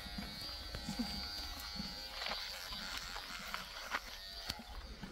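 Electric animal clippers running with a steady buzz as they shave the hair on a pony's neck, with a few short clicks from about two seconds in.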